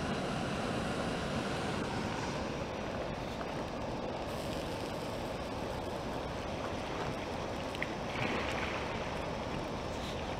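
Steady outdoor rushing noise with a few faint crackles here and there.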